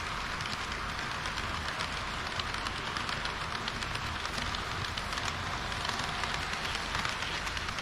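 HO-gauge model train running along its track, heard close up from a camera riding on the layout: a steady rattle of wheels on rail, full of fine rapid clicks, over a low motor hum.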